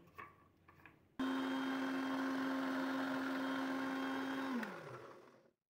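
Electric blender jar blending yogurt with soaked walnuts and chopped nuts. It switches on abruptly about a second in and runs at a steady pitch, then is switched off and winds down with a falling pitch near the end.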